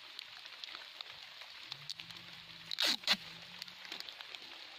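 Light rain pattering steadily on leaves and soil. A brief, loud rasping sound in two quick strokes comes about three seconds in.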